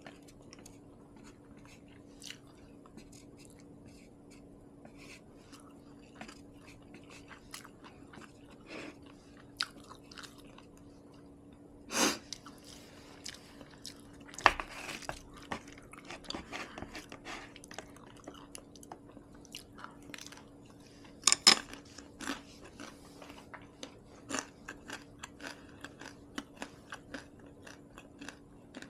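Close-miked chewing of rice, kimchi and seaweed soup: wet mouth clicks and crunching, with a few louder sharp sounds, the loudest a quick pair about two-thirds of the way through. A faint steady hum runs underneath.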